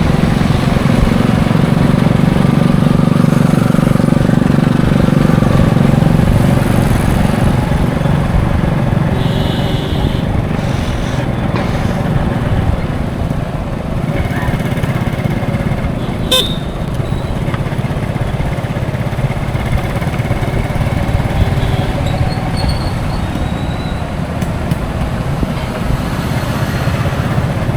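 Highway traffic: a continuous heavy engine drone, loudest over the first seven seconds and easing after, with a short horn toot about ten seconds in and a sharp click about sixteen seconds in.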